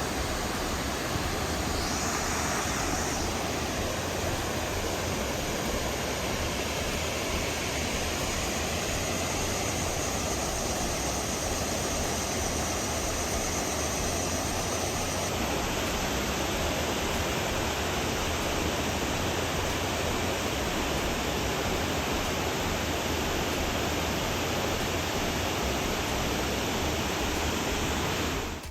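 Steady rush of a waterfall, an even wash of falling water with no breaks.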